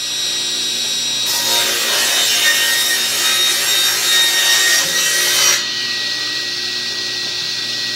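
Electric power saw running with a steady motor whine and cutting through wood for about four seconds, starting a little over a second in. The motor keeps running without load after the cut.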